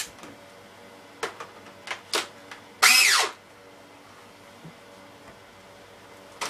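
Clear plastic wrapping crinkling and crackling in short bursts as it is pulled off a toy gun, with one loud half-second burst about three seconds in whose pitch falls sharply.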